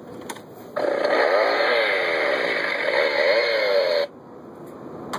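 An electronic sound effect from a boxed Halloween prop's small speaker. It has a wavering pitch, starts suddenly about a second in, and cuts off abruptly about three seconds later.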